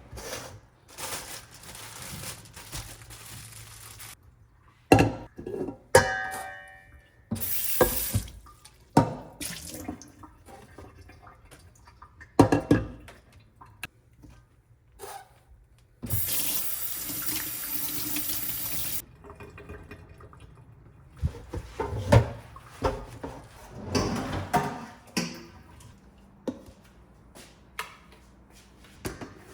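Kitchen sink work: dishes and utensils knocking and clinking, with a tap running for about three seconds around the middle and shorter splashes of water earlier.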